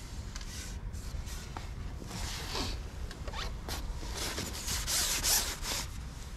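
Repeated swishing and rubbing as a carbon fishing pole is shipped back, its sections sliding through the hands and over the roller while a hooked fish is played, over a steady low wind rumble.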